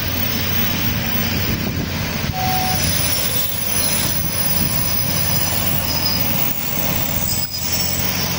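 Taiwan Railways Tze-Chiang diesel multiple unit rolling slowly into the station, its diesel engines running with a steady low hum under the rumble of the wheels, with a couple of brief faint wheel squeals near the end.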